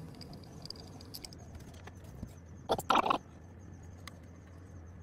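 Hands working small parts of a miter saw's laser unit with an Allen key: a few faint clicks, then a short double scraping rattle about three seconds in, over a low steady hum.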